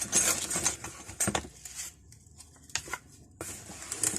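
Rummaging through a box of old hand tools: irregular clinks, knocks and rustles of metal tools and packaging being moved, with a short lull about two seconds in.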